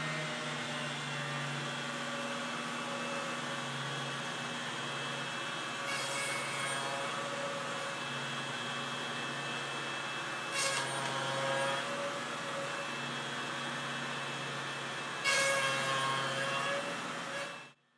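DeWalt router running steadily on a sled jig, surfacing the end of a log. Its whine has three louder, brighter stretches before it stops abruptly near the end.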